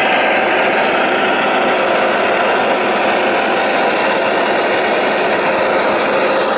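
A remote-controlled Liebherr R970 SME scale excavator running steadily as its grapple lifts a log section: a loud, even mechanical hum with a slight shift in pitch partway through.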